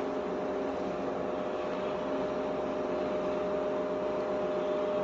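Welding arc hissing and crackling steadily during a 3F (vertical fillet) weld on a tank, over a steady machine hum.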